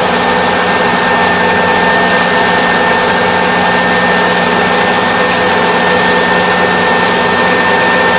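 Kubota ER470 combine harvester running steadily: a loud, constant machine drone with a whine that holds one pitch.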